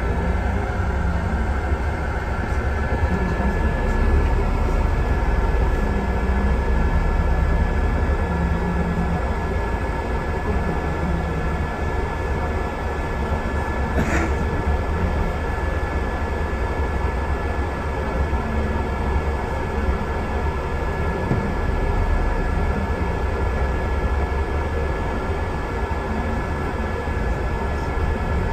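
Steady low rumble of a double-decker bus on the move, heard from inside on the upper deck: engine and road noise with a faint steady whine above it. A single sharp click about halfway through.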